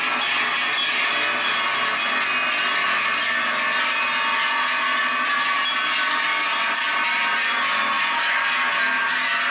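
Many large cowbells clanging together as a herd of cows walks, the bells overlapping in a steady, unbroken jangle.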